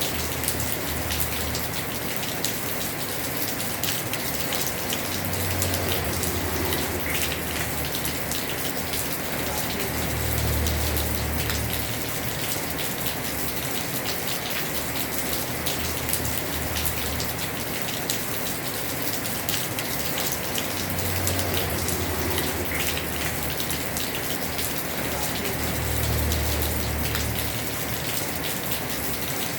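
Heavy rain falling on a house roof: a dense, steady patter of drops, with a low rumble that swells and fades several times.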